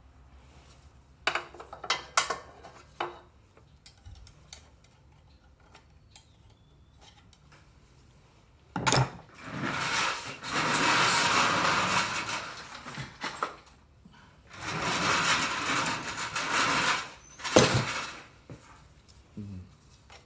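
Metal hand tools clattering and rattling as they are rummaged through. A few sharp clinks come first, then two long spells of dense clatter and a sharp clank near the end.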